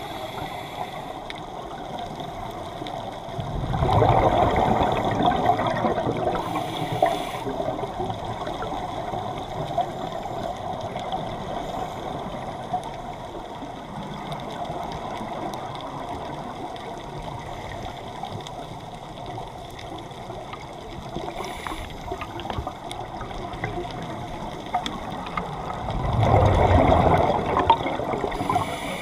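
Underwater ambience with a steady low wash and faint scattered crackling, broken twice by a loud rush of scuba exhaust bubbles from a diver's regulator: about four seconds in and again near the end.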